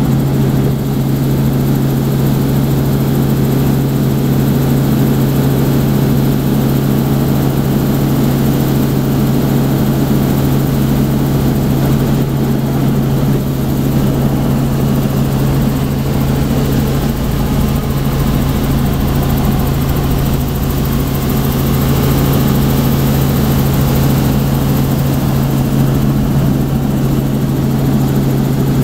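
Helicopter in steady flight, heard from inside the cabin: a loud, unchanging drone of the engine and rotor with a strong low hum.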